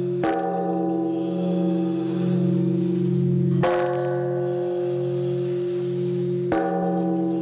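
Large temple bell struck three times with a swinging wooden log striker, about three seconds apart. Each stroke rings on as a deep, steady hum that runs into the next.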